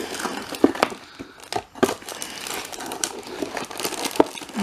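Clear plastic bag of model-kit parts crinkling as it is handled, with irregular crackles and a few sharper snaps.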